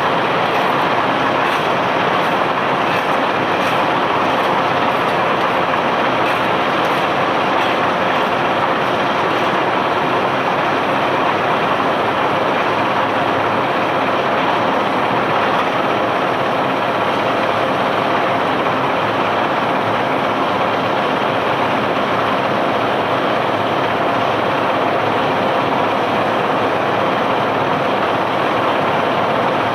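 Steady, dense mechanical rumble and rattle of a barge's machinery unloading cobblestones, running unchanged.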